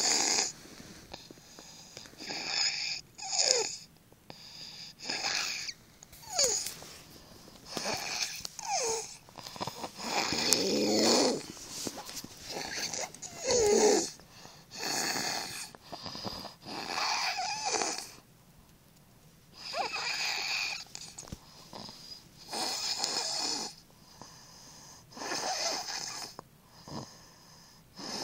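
A six-year-old child snoring in sleep: a regular run of about a dozen snores, roughly one every two seconds. Several snores carry a gliding, whistle-like tone.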